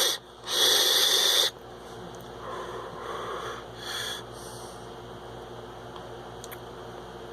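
Breathy hiss of a vape drawn through a Goocig Toro Tank sub-ohm tank and blown back out. The loudest rush starts about half a second in and lasts about a second, with softer breaths around three and four seconds in.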